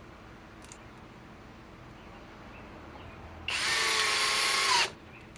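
Flex 24-volt compact hammer drill driving a structural wood screw: the motor runs steadily for about a second and a half, starting a little past three seconds in, its pitch dipping slightly just before it stops as the screw seats.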